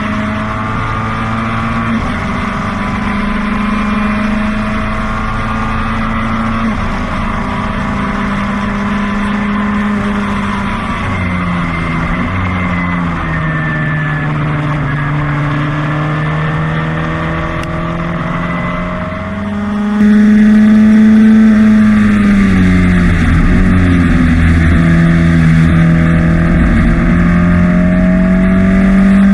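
Formula Ford racing car's 1600 cc Ford Kent four-cylinder engine at racing speed, heard from on board the car. The engine note holds high, drops in steps as the driver lifts and shifts down, then climbs again as the car accelerates. The sound becomes much louder about two-thirds of the way through.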